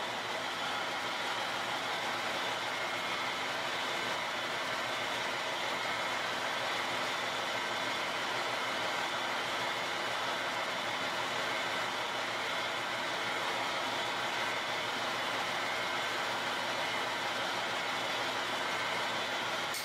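KiHa 32 diesel railcar standing at a station with its diesel engine idling: a steady drone with a constant set of tones that does not change.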